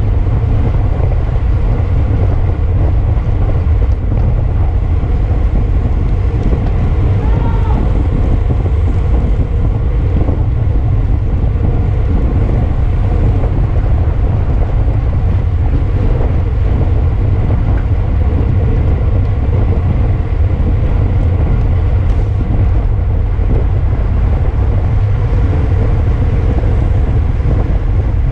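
Wind buffeting the microphone of a camera riding along in a bicycle race at speed: a steady, loud low rumble.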